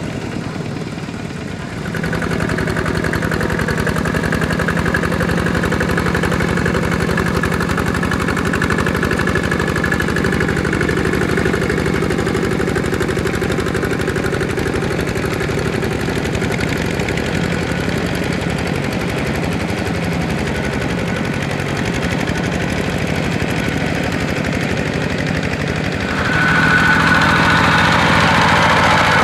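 Kubota two-wheel walking tractor's single-cylinder diesel engine chugging steadily under load as it pulls a disc plough through wet paddy soil. It grows louder about two seconds in and again near the end.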